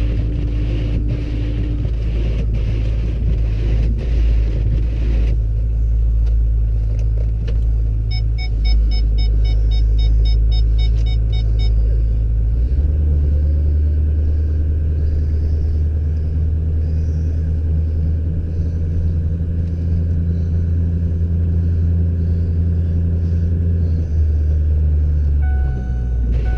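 Engine of a snowplowing vehicle running steadily under load, a loud low rumble. About halfway through the engine note steps to a different steady pitch, and it changes again near the end.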